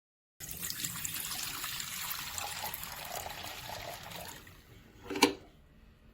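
Dirty water pouring and trickling out of an upholstery water vacuum's recovery tank, tapering off after about four seconds, then one sharp knock.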